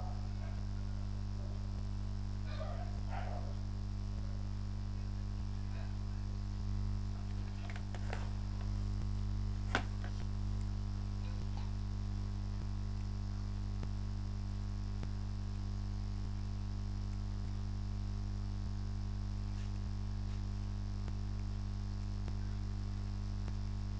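Steady low electrical mains hum, with a single sharp click about ten seconds in.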